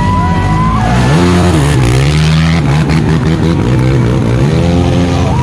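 Racing ATV engines revving hard as the quads climb a steep muddy hill, the engine note rising and falling with the throttle, rising sharply about a second in and again near the end.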